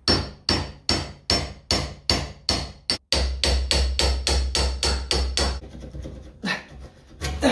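Rapid, evenly spaced metal-on-metal tapping, two to three sharp strikes a second, from a chisel worked against the rusted steel bracket plate of an axe head to knock it loose. The tapping stops about two-thirds of the way through, leaving a few scattered knocks.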